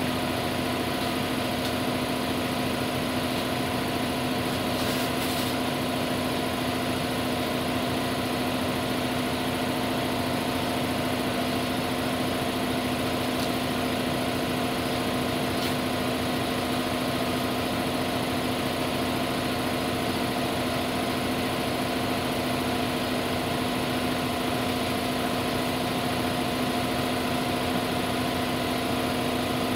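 A motor or engine running steadily: a constant drone with a strong low hum and several steady overtones, unchanging, with a few faint ticks.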